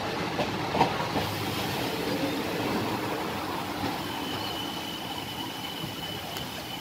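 Indian Railways passenger coach running along the track, heard from an open door: a steady rumble and rattle with two sharp wheel clicks over rail joints within the first second. A thin high squeal sets in about four seconds in and holds.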